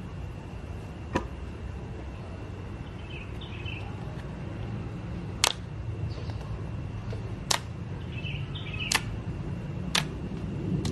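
Five sharp clicks at irregular spacing, the loudest about halfway through, over a steady low rumble, with a couple of faint high chirps.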